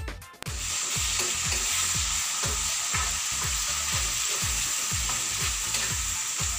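Spaghetti sauce sizzling in a frying pan over a gas burner, a steady hiss that starts about half a second in.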